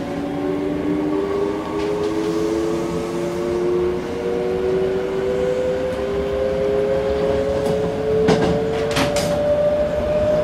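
Toei 5300 series train's traction motors whining as it accelerates, heard from inside the car, the tone climbing slowly and steadily in pitch over the running noise. A few sharp clacks come near the end.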